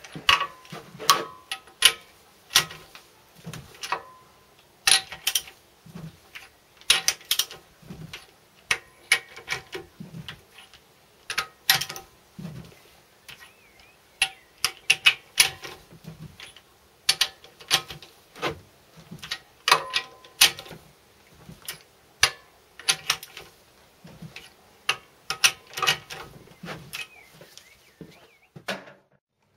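Metal socket ratchet clicking in short runs every second or two as it is swung back and forth, tightening the connecting rod's big-end bolts through the open cylinder bore of a Wolseley WD2 engine. The clicking stops shortly before the end.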